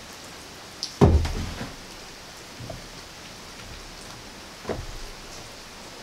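Steady patter of rain, with a heavy thump about a second in and a lighter knock near the end as a radiator fan and plywood are set down on a wooden workbench.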